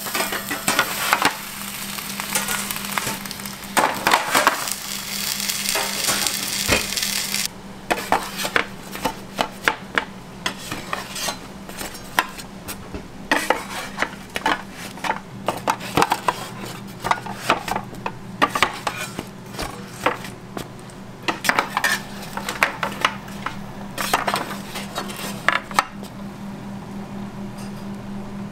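Kitchen work sounds: scattered clatter and clinks of metal pans and utensils over a steady low hum. A hiss runs through the first seven seconds or so and cuts off suddenly.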